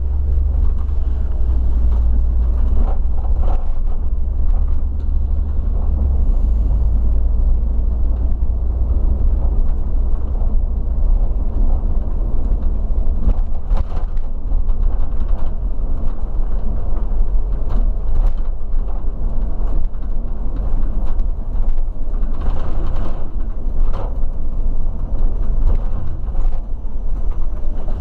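Coach driving on the road, heard from inside near the driver's seat: a steady low engine and road rumble with scattered knocks and rattles.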